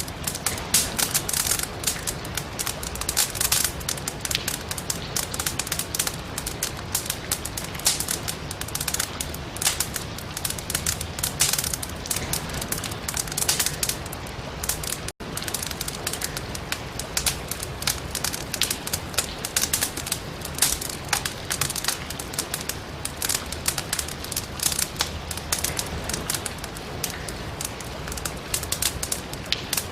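Firewood burning in a fireplace, crackling with dense, irregular sharp pops over a steady hiss of rain. A very brief gap about halfway through.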